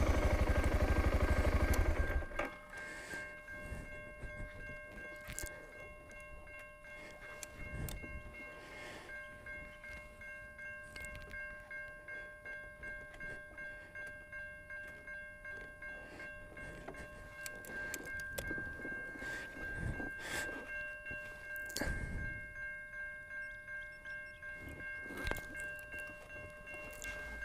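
BMW G650GS single-cylinder engine idling for about two seconds, then switched off. After that a railway level-crossing warning bell rings over and over, the sign that a train is approaching.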